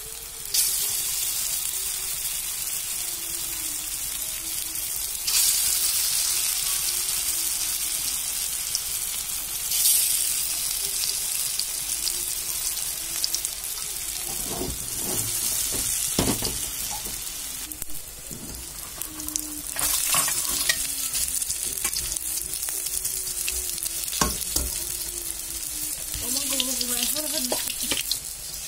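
Lentil fritters sizzling in hot oil in a pan, a steady hiss that swells now and then. A few knocks and scrapes in the middle and near the end, as they are turned.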